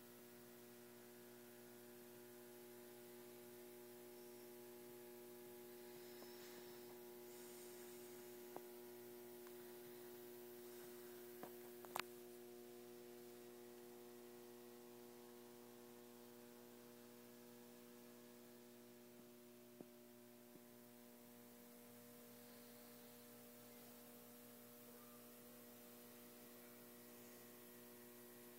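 Near silence: a steady electrical hum, with a few faint clicks, the loudest about twelve seconds in.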